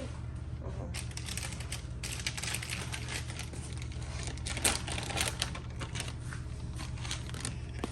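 Dishes and utensils being handled: a run of quick, irregular light clicks and knocks, over a steady low hum.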